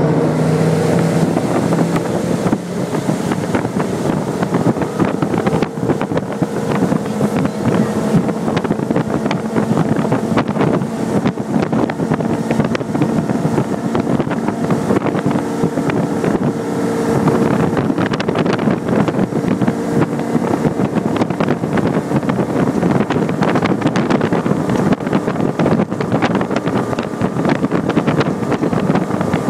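Mastercraft ProStar 197 ski boat's inboard engine running hard at towing speed, climbing quickly at the start as the boat accelerates, then holding steady, with wind buffeting the microphone.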